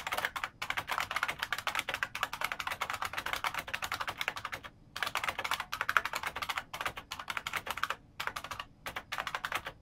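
Fast typing on a Unicomp 104-key Model M buckling-spring keyboard: a dense run of loud key clicks, broken by two short pauses about five and eight seconds in.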